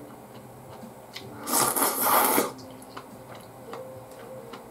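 A mouthful of udon noodles slurped for about a second near the middle, with small clicks of chewing and chopsticks before and after.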